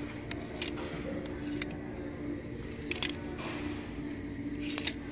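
Clothes hangers clicking against a clothing rack as shirts are pushed along it by hand: a handful of sharp, separate clicks over a steady low hum.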